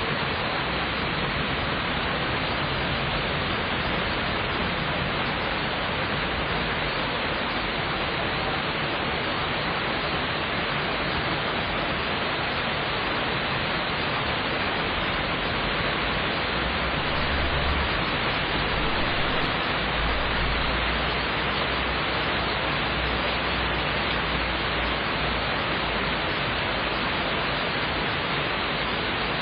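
Steady rain hissing, with a low rumble of distant thunder swelling up about halfway through and lasting several seconds.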